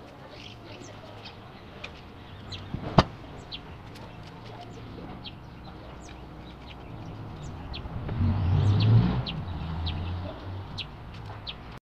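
Small birds chirping on and off, short high chirps throughout. A single sharp knock about three seconds in, and a low rumble that swells and fades between about eight and ten seconds in.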